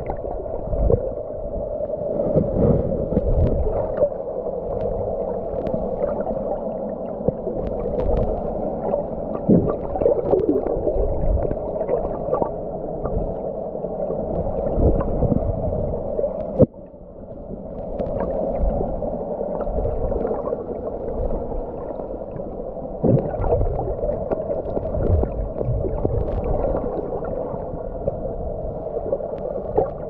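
Muffled underwater noise heard through a submerged camera: water gurgling and knocking, over a steady hum. It drops out suddenly about halfway through and then builds back up.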